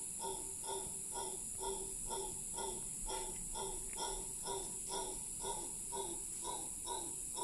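Mantled howler monkey howling: a long run of rhythmic, harsh calls, about two pulses a second, with a steady high hiss behind them.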